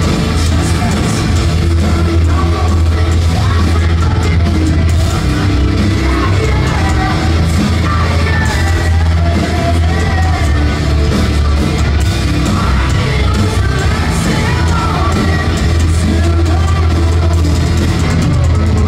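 Metalcore band playing live and loud, with sung and yelled vocals over a heavy, steady low bass.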